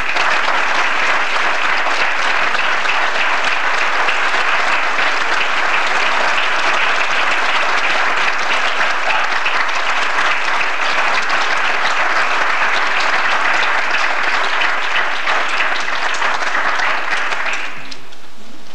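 Audience applauding: a long, steady round of clapping that dies away near the end.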